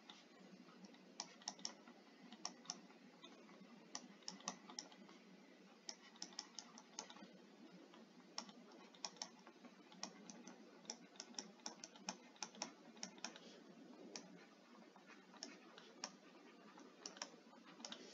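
Faint, irregular ticks and taps of a stylus writing on a tablet screen, coming in quick clusters of several a second.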